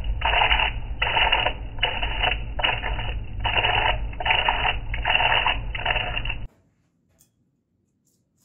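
Wood lathe motor humming while a turning gouge cuts into the skin of a spinning pineapple in repeated strokes, a little over one a second. Everything cuts off abruptly about six and a half seconds in.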